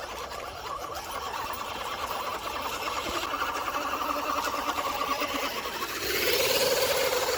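Electric motor and geared drivetrain of a 1/10-scale RC 6x6 truck whining as it drives, getting louder about six seconds in.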